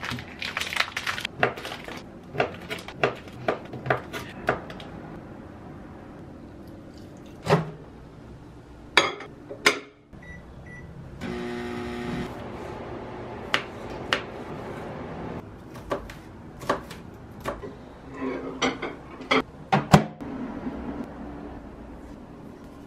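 Kitchen handling: plastic packaging crinkling and sharp clicks as tempeh is unwrapped into a ceramic bowl. About ten seconds in come two short keypad beeps, and a microwave oven runs with a steady hum for about four seconds. More sharp taps and clicks follow as the food is handled in the bowl.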